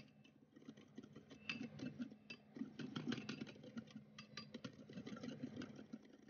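Wire whisk stirring a dry mix of cocoa powder, caster sugar and flour in a glass bowl: quick, irregular scratching and light ticks of the wires in the bowl.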